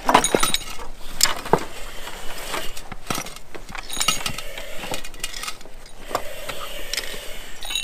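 Firefighter's SCBA air pack and gear knocking, clinking and scraping as it is pushed through a breached wall. The hits and scrapes come irregularly, some with a brief metallic ring.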